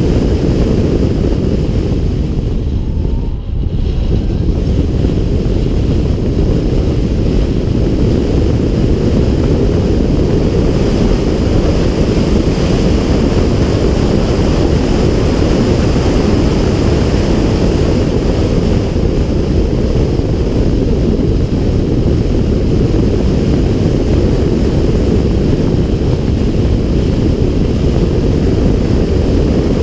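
Steady, heavy wind buffeting on the microphone of a camera mounted on the hood of a car lapping a race track at speed, a dense low rumble that dips briefly about three and a half seconds in.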